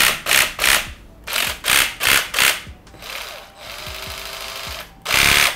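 Black & Decker Multi EVO cordless drill body with its jigsaw head run in a string of short trigger bursts, the blade moving back and forth in quick blips. Then a steadier, quieter run for about a second and a half, and another short burst near the end.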